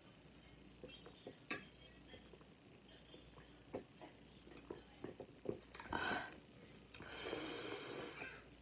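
Faint chewing and lip smacks of someone eating, with scattered small clicks, then a long, breathy exhale lasting over a second near the end.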